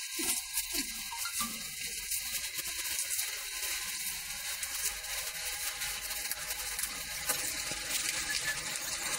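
Small kitchen knife slicing an onion held in the hand, giving faint irregular clicks and crunches over a steady hiss.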